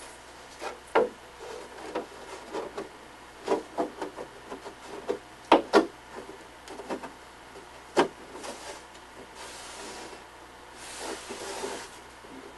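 Irregular knocks, taps and clatters of a thin sheet being handled and fitted into a model ship hull by hand. The loudest are a quick pair of knocks about halfway through and another a couple of seconds later. Near the end comes a longer sliding rub as the piece is pushed into place.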